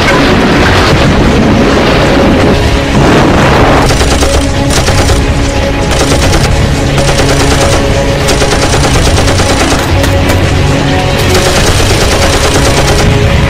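Battle sound effects of rapid machine-gun fire and booms mixed over loud background music.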